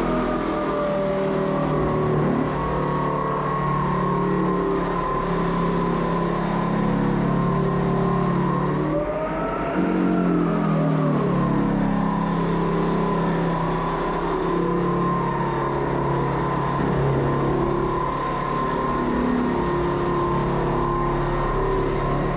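Electric floor sander running under load, a steady motor whine whose pitch sags and recovers about halfway through as it bites into the wood.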